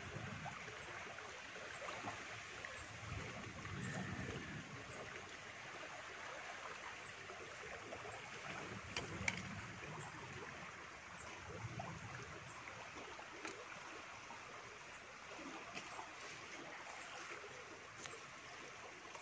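Faint, steady outdoor rushing hiss with scattered small ticks and rustles, and a sharper click about nine seconds in.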